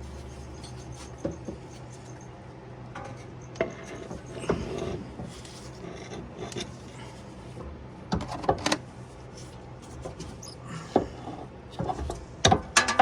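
Metal suspension parts knocking, clicking and scraping as a front strut assembly is worked into its mount, with a cluster of sharper knocks about eight seconds in and more near the end.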